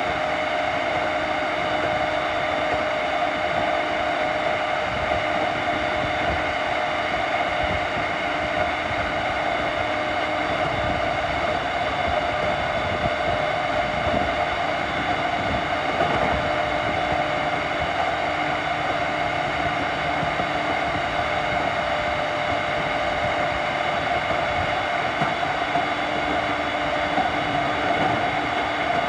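Running sound of a JR East E231 series electric train at a steady speed: continuous wheel-and-rail noise with steady whining tones from its Hitachi two-level IGBT VVVF inverter and traction motors, holding pitch throughout.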